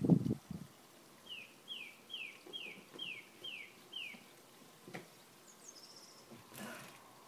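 A small garden bird singing a run of seven clear notes, each sliding down in pitch, about two and a half a second, followed a little later by a short higher call. A brief low bump at the very start.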